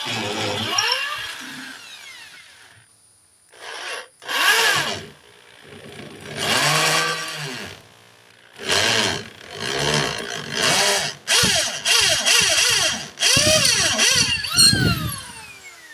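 Electric drill boring the ramrod hole lengthwise into a hard walnut pistol stock. It runs in a series of short bursts, the motor winding up and down in pitch with each one.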